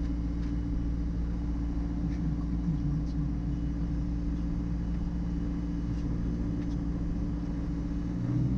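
Diamond DA40 NG's single turbodiesel piston engine running steadily at low power, heard inside the cockpit; it grows louder in the last moment as power comes up for the takeoff roll.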